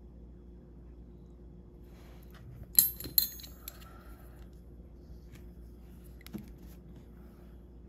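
Two sharp, ringing clinks about three seconds in, a small glass gel polish pot or its lid being handled and set down, followed by a couple of faint taps. A faint steady hum runs underneath.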